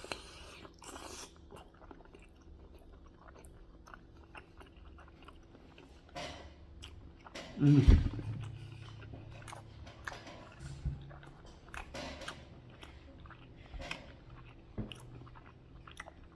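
Chewing and biting food, with many small wet mouth clicks, and a louder sound a little before the middle.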